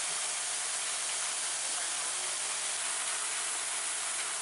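Steady hiss of water spraying down as artificial rain.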